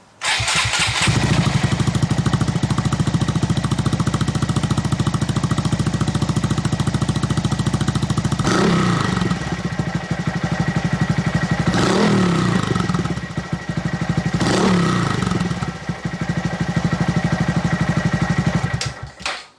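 Honda Monkey 125's single-cylinder four-stroke engine through a Yoshimura RS3 exhaust with its spark arrestor insert fitted. It starts, idles with a steady beat, is revved briefly three times, and is switched off near the end.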